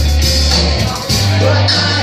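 Live rock band playing loudly, with electric guitar and a sustained low bass line that steps up to a higher note about a second in.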